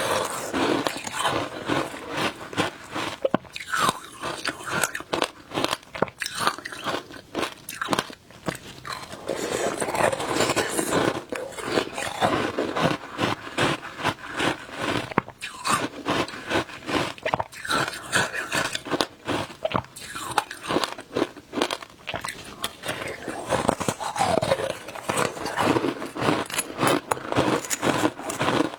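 Shaved ice being bitten and chewed close to the microphone: a dense run of crisp crunches and crackles from the ice breaking between the teeth.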